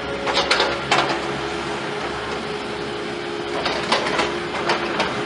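Machinery running with a steady hum, broken by a few sharp knocks: a cluster about half a second to a second in, and more near the end.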